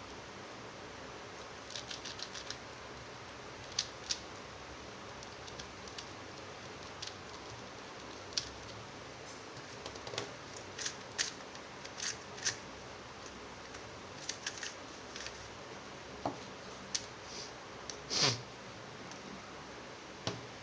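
Light, irregular clicks and handling noises of small plastic puzzle cubes being handled, over a steady low hiss, with a longer scraping rustle about 18 seconds in.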